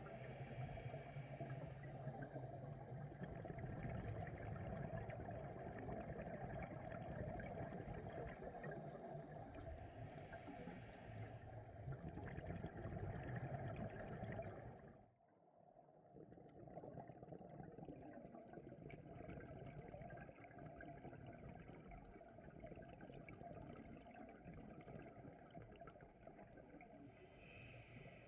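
Steady, muffled water noise with a few short hissing bursts. It drops out suddenly about halfway through and comes back quieter.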